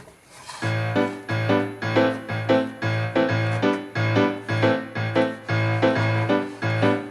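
Background music with a piano-like keyboard playing repeated notes in a steady rhythm, starting about half a second in.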